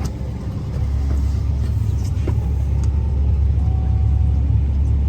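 Tour boat's engine running with a steady low rumble, growing a little louder about a second in.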